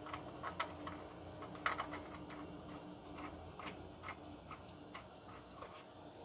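Faint, irregular metal clicks and ticks, about two a second, as a band clamp is fitted around a loose exhaust heat shield, over a faint steady hum.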